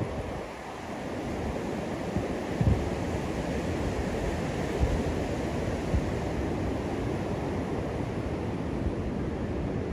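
Wind rushing over the microphone in a steady noisy haze, with irregular low buffeting thumps from gusts.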